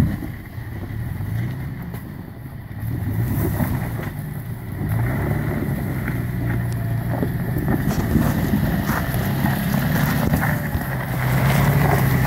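Toyota FJ Cruiser's 4.0-litre V6 engine running at low revs as the truck crawls over rocky ground, its note rising and falling with the throttle and growing louder as it comes near. Scattered knocks and crunches come from the tyres on rock.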